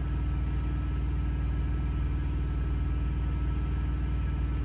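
Semi-truck diesel engine idling steadily, a low even hum heard from inside the cab.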